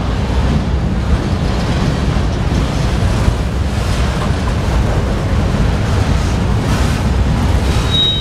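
Freight train cars rolling past on the adjacent track: steady loud noise of steel wheels on rail, with a brief high squeal near the end.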